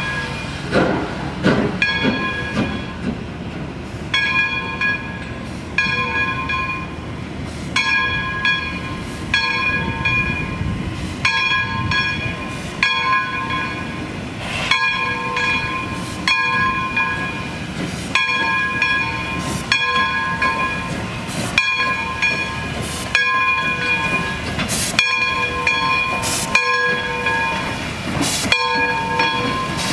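An 0-6-0 steam locomotive, Essex Terminal Railway #9, moving slowly with its bell ringing over and over at a steady beat, over a low rumble and hiss of steam.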